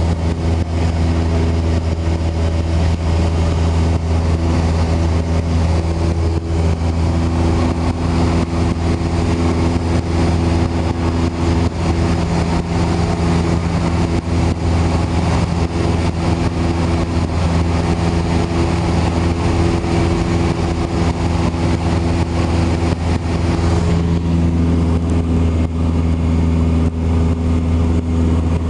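Cessna 172 Skyhawk's piston engine and propeller in cruise flight, a steady drone heard from inside the cabin.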